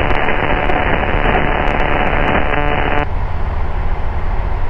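Radio or intercom hiss with the microlight's steady engine and airflow drone underneath; the hiss cuts off abruptly about three seconds in, leaving the engine drone.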